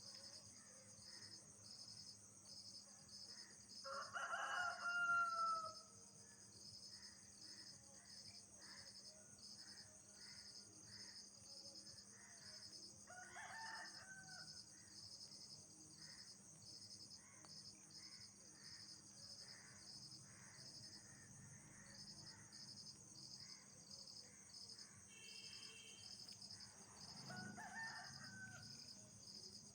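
Night insects calling: one pulses high at about one chirp a second over a steady high-pitched trill from others. A rooster crows about four seconds in, the loudest sound here, and fainter crows follow around thirteen seconds in and near the end.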